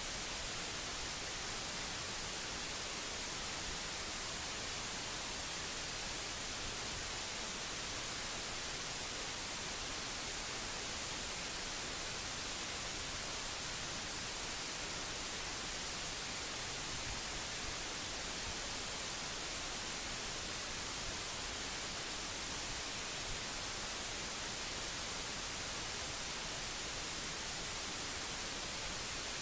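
Steady, even static hiss with no other sound: the background noise of the recording itself.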